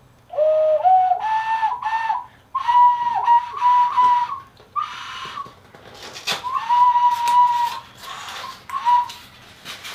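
An ocarina being blown: a few notes stepping upward, then several longer notes held at about one higher pitch, with short breaks between them.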